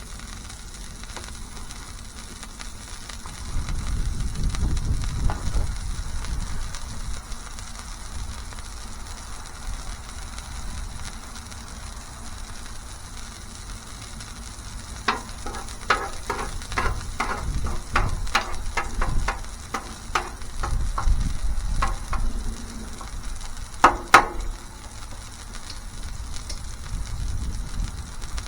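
Smashburger patties sizzling on a flat-top griddle, with patches of low rumble. About halfway through comes a quick run of sharp clicks, about two or three a second, and a louder double clack comes near the end.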